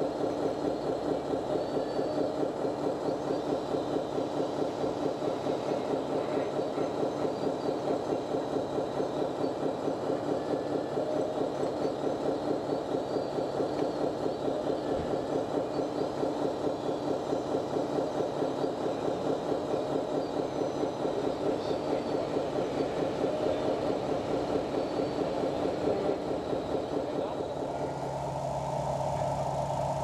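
Engine sound of a radio-controlled model truck or construction machine, most likely a diesel engine sound module playing through the model's speaker. It runs at a steady idle with a fast, even chug. About 28 seconds in, the sound changes to a steadier, higher tone.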